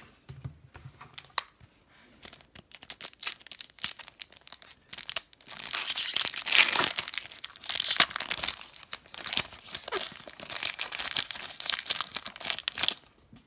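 A 2018-19 Upper Deck Series 1 hockey card pack's foil wrapper being handled and torn open: light scattered clicks and rustles at first, then from about five seconds in a dense run of loud tearing and crinkling.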